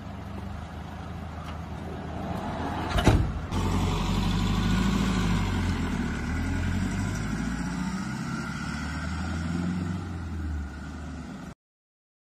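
Toyota cash-transport van's engine running steadily, with a sharp thump about three seconds in, after which the engine runs louder as the van drives off. The sound cuts off abruptly near the end.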